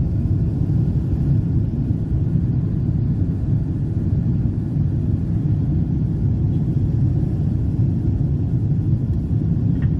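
Steady low rumble of a jet airliner's cabin noise during the climb just after takeoff: engines and rushing air heard through the fuselage from a window seat.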